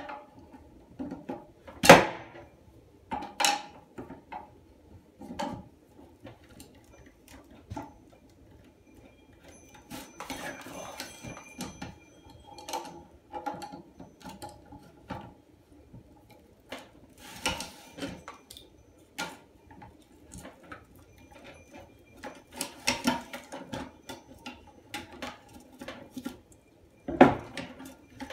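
Clicks, knocks and scraping of large slip-joint pliers gripping and turning the flush-valve nut on the underside of a porcelain toilet tank, loosening it to remove the old flush valve. The sharpest knocks come about two seconds in and again near the end.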